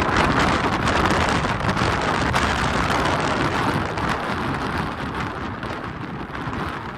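Blizzard wind gusting hard, with blowing snow hissing and pelting against the microphone. It is loudest at first and slowly dies down.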